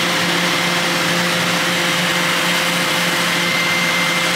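A laser hair-removal machine with its skin-cooling unit running, giving a steady, even whir with a constant hum.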